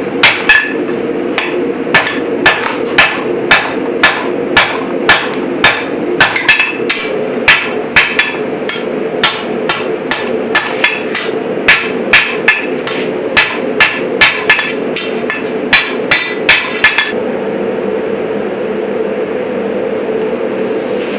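Hand hammer striking red-hot steel on an anvil at a steady pace of about two blows a second, each blow with a short metallic ring. The blows stop about four seconds before the end, leaving a steady low rumble that runs underneath throughout.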